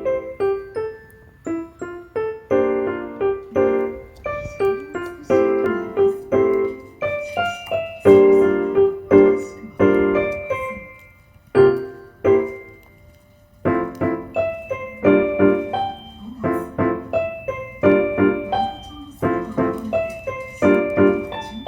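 Piano music: a gentle run of struck chords and melody notes, each dying away, with a short pause a little past halfway.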